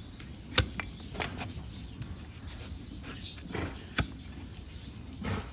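Flat steel hoof-trimming blade being pushed by hand through a donkey's hoof horn against a wooden block: sharp cracking clicks as it cuts, the two loudest about half a second and four seconds in, with softer scraping cuts between.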